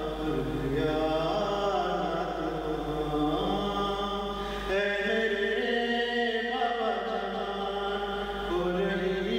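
A man's voice chanting an Urdu marthiya (elegy) in a slow, melodic recitation with long held notes and no instruments.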